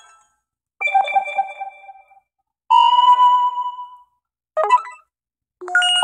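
Stock notification tones on an Alcatel One Touch Android phone, previewed one after another as each is selected: four short electronic chimes, each fading away before the next starts.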